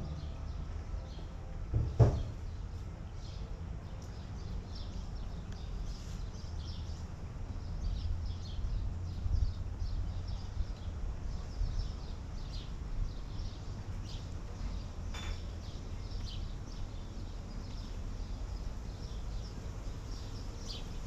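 Small birds chirping over a steady low background rumble, with a single sharp knock about two seconds in.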